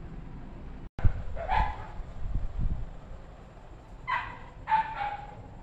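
A puppy giving a few short, high-pitched yapping barks, the first about a second and a half in and a quick pair near the end.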